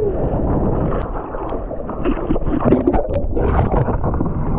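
Seawater splashing and churning around a surfer's action camera as it goes in and out of the water, turning muffled and bubbly underwater. A short wavering tone sounds about two and a half seconds in.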